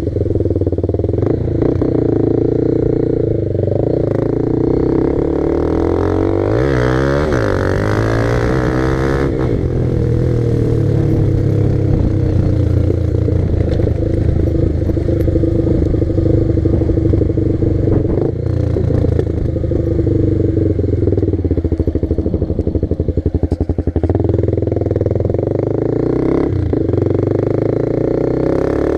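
Honda CB300R's single-cylinder engine running steadily as the motorcycle is ridden along a highway, its pitch swinging up and down about a quarter of the way in, then holding steady.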